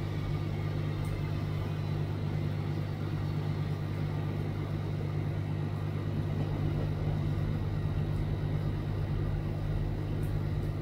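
A motor running steadily, giving a constant low drone.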